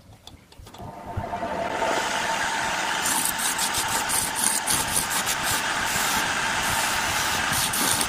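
An electric wood lathe starting up. Its motor spins up over about a second and then runs steadily with a whine. From about three seconds in, a rapid ticking and scraping joins in.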